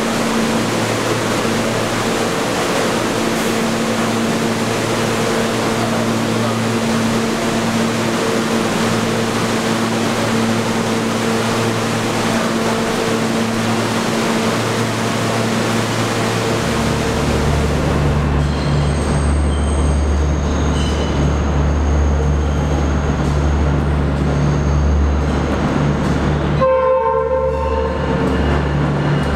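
New York City subway station platform: a stopped R train with its doors open gives a steady electrical hum, then a heavy, deep rumble of a moving train sets in about two-thirds of the way through and carries on to the end.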